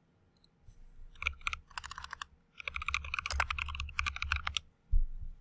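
Typing on a computer keyboard: a quick run of keystrokes, then a single heavier thump near the end.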